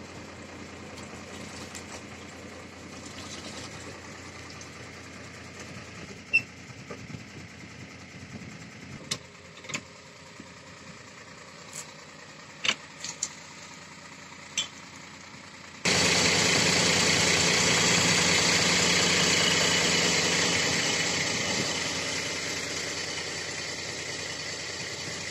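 Mercedes Unimog fire engine's diesel engine running, with a few sharp clicks and knocks. About two-thirds of the way in, a much louder steady rushing noise starts suddenly, holds for a few seconds, then slowly fades.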